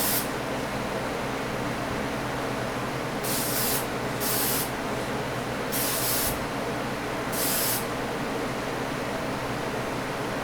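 Metallic gold spray paint going on in four short bursts of hiss, each about half a second, over a steady background hum.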